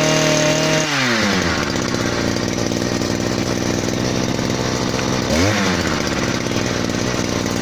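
A petrol-powered drill's small engine comes off high revs to idle about a second in, idles steadily, and then gives a short rev and falls back to idle about five and a half seconds in.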